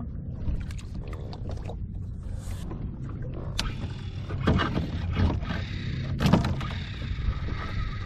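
Water sloshing against a plastic fishing kayak on the open ocean, under a steady low wind rumble on the microphone. Several sharp knocks and splashes come between about four and six and a half seconds in, the loudest near the end of that stretch.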